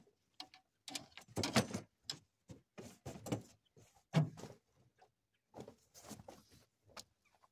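A run of irregular knocks, taps and clicks from movement and handling inside an aluminum jon boat.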